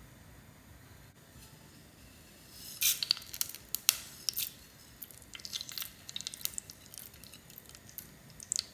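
Fenugreek seeds sizzling in hot oil in a clay pot. Irregular sharp crackles and pops start about three seconds in and carry on unevenly.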